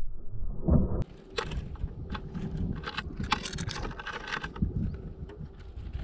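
Small birds, great tits and a Eurasian tree sparrow, at a wooden feeder. In the first second there are loud, muffled low thumps as the tits flap at the openings. After that come many sharp taps and clicks of beaks and claws on the plywood and the seeds, busiest in the middle.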